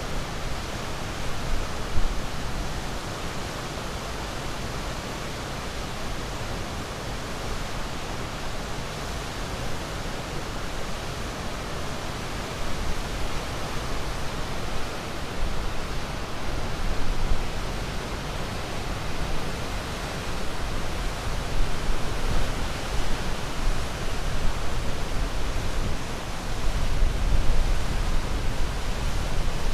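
Ocean surf: a steady rushing wash of waves, swelling a little louder in the last few seconds.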